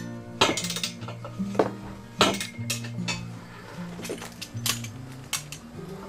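Sharp metallic clanks and clinks, about eight at irregular intervals, from a homemade steel-pipe lever tool being worked against a steel wheel to break the tire bead. Background music with low, steady notes underneath.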